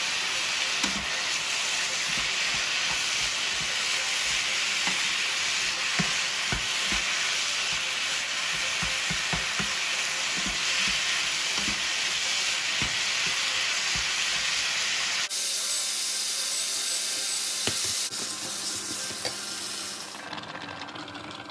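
Minced meat and green olives sizzling as they fry in a non-stick pan, with a wooden spatula stirring and knocking against the pan through most of it. For the last several seconds the sizzling goes on without the stirring.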